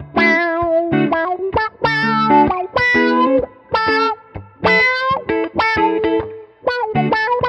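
Two electric guitars jamming through an Analog Man Block Logo envelope filter, an auto-wah, in a run of short picked notes and phrases with brief gaps between them.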